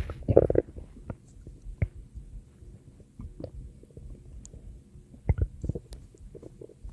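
A person's stomach growling and gurgling in irregular bursts, loudest about half a second in and again a little past five seconds, with short pops and clicks between.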